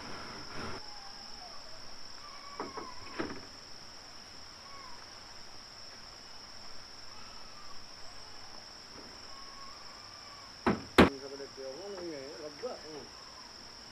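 Steady, high-pitched insect chorus of crickets, one unbroken trill, with two sharp knocks in quick succession about eleven seconds in.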